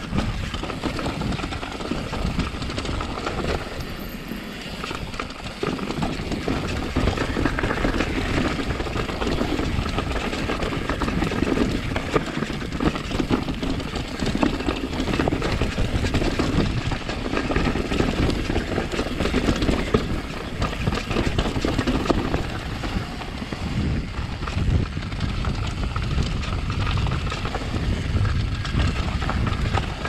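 Downhill mountain bike riding fast over a rocky trail: a continuous rattling clatter of the tyres and bike hitting rocks and roots.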